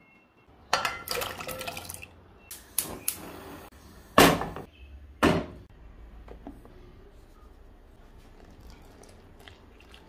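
Kitchen handling noise: several knocks and clatters of dishes and a glass mixing bowl, the loudest about four and five seconds in, followed by a quieter steady hiss as glutinous rice flour and then warm water are poured into the bowl.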